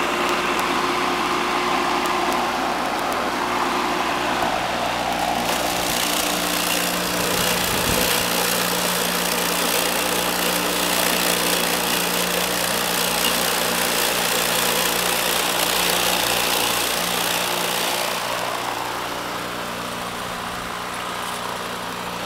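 Homemade electric lawnmower with a Century electric motor running at 1725 rpm, giving a steady hum. Its spinning blade cuts grass, and a louder rush of cutting noise comes in about five seconds in and eases off a few seconds before the end.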